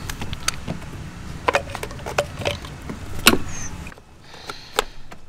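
Metal pick tools clicking and scraping against the plastic clip fittings of a PCV valve hose as they are pried open, with one sharper click about three seconds in. A low steady hum underneath stops suddenly about four seconds in.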